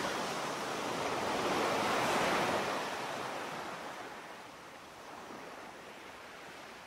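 Sea waves washing on a shore: a rush of surf that builds to its loudest about two seconds in, then slowly fades away.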